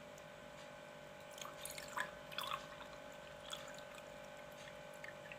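A few faint splashes and drips of a brewed herbal cough decoction, about one and a half to two and a half seconds in, over a steady electrical hum.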